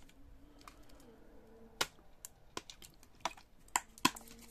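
A few short, sharp clicks and light knocks, about six of them, starting a little under two seconds in and loudest near the end: small hobby items such as bottles and tools being picked up and set down on a work table.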